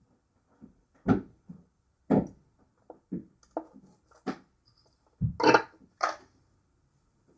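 A series of irregular knocks and clunks, about eight in a few seconds, from objects and tools being handled and set down on a work surface. The loudest knocks come about a second in, two seconds in, and a longer clatter near five and a half seconds.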